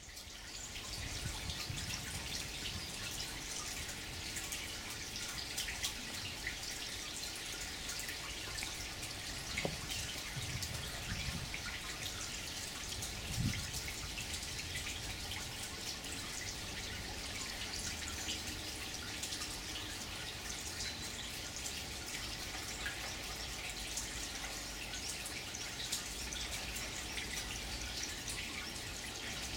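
Water from an onyx limestone bubbling-stone fountain welling out of the bore in the top and trickling and dripping down the stone's layered ledges onto gravel, a steady splashing patter. There is a brief dull thump about halfway through.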